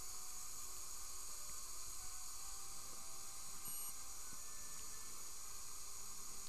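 Steady faint hiss of dental equipment, with one short, faint high beep about three and a half seconds in.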